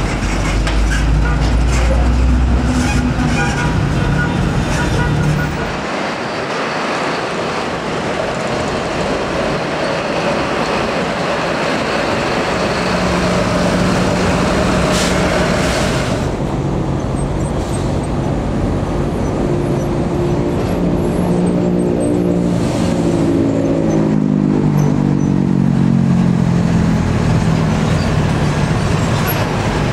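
Heavy diesel trucks running and moving off at close range, their engine notes climbing and falling in the second half, with a short hiss of air about halfway through.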